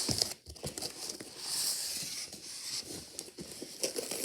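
Packaging of a box being worked open by hand: scraping and rustling, with scattered small clicks and knocks.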